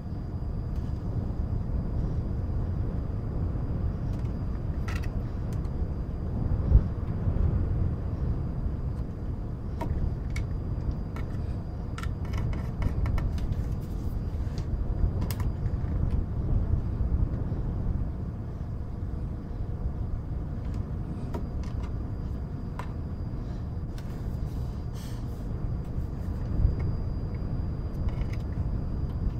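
A steady, low-heavy bed of wind and white noise, with scattered light clicks of cardboard jigsaw puzzle pieces being sorted and tapped, briefly more frequent about twelve seconds in. Two soft low thumps stand out, about seven seconds in and near the end.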